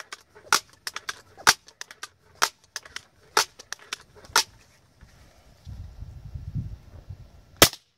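Daisy 880 .177 multi-pump air rifle being pumped up, its freshly oiled pump stroke clacking about once a second, five times. After a pause with some handling rumble, a single sharp shot comes near the end.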